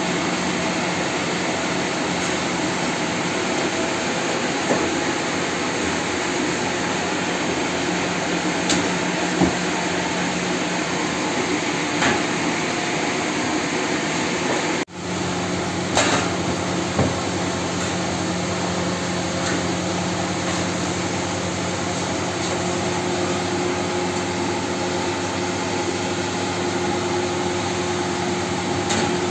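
Steady mechanical roar and hum of flatbread bakery machinery, with a few light knocks and clicks scattered through it. The sound cuts out for an instant about halfway through, then carries on with a slightly stronger hum.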